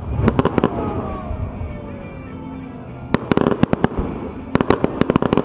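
Aerial fireworks display going off: clusters of rapid sharp crackling pops, at the start, about three seconds in, and again near the end, with a low rumble under the first cluster.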